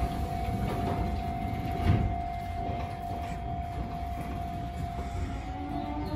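Shin-Keisei 8800-series electric train standing at a platform: a steady whine from the train, and a thud about two seconds in as its doors shut. Near the end the rising whine of its VVVF inverter traction motors starts as the train begins to pull away.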